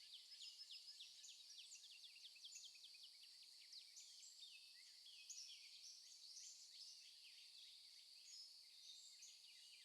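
Faint woodland ambience of many birds chirping, with short, quick falling chirps coming one after another over a steady high hiss.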